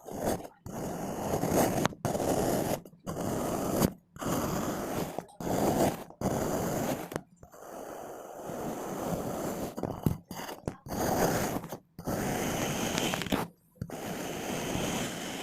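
Kinetic sand being scraped and crumbling, in about a dozen grainy strokes of roughly a second each, with short pauses between them.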